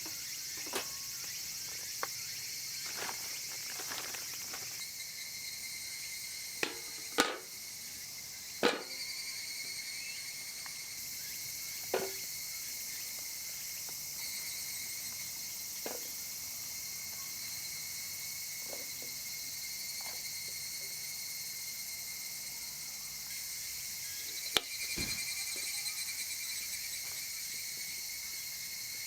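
Steady chorus of summer insects chirping in several high-pitched bands, with a handful of short, sharp knocks and clicks scattered through it, the loudest about seven, nine, twelve and twenty-five seconds in.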